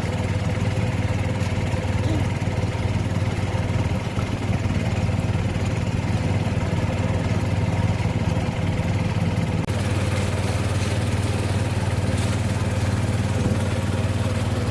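A small engine running steadily at an even pace, with a continuous low hum. More hiss joins it about two-thirds of the way through.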